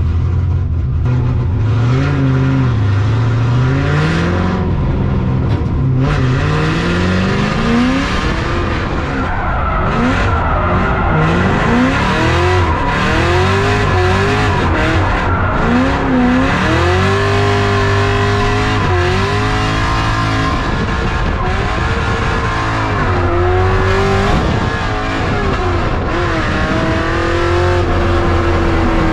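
Cadillac CTS-V's LS2 V8 revving up and down over and over as the car drifts, with tires squealing.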